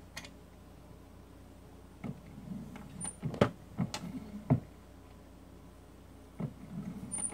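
Single-stage reloading press being worked to seat a bullet into a rifle case: a few sharp metal clicks and knocks, starting about two seconds in and spaced roughly half a second apart, then a softer one near the end.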